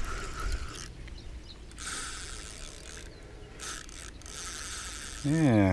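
Spinning reel whirring and clicking in four bursts with short pauses between, its gears and drag working under load while a hooked carp is played in close to the bank. A man says a short 'yeah' at the very end.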